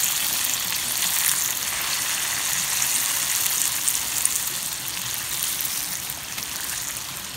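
Hot oil sizzling steadily in a wok as salted fish fries, with small pops throughout, easing slightly near the end.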